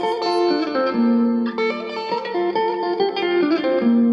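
Stratocaster-style electric guitar with a capo, played through a compressor pedal: an improvised single-note melodic line, with some notes held for about a second.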